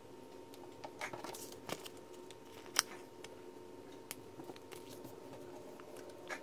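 A Dorco 60-degree 9 mm snap-off cutter blade, held bare in the fingers, scoring automotive PPF film on a cutting mat. This is a half-cut through the film's face and not its backing. A brief scratchy cutting sound comes about a second in, followed by a few light clicks and taps as the blade and film are handled, over a faint steady hum.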